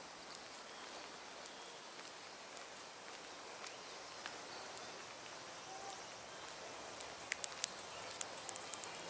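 Outdoor ambience: a steady, faint hiss with a few light clicks, then a quick run of sharp clicks in the last two seconds.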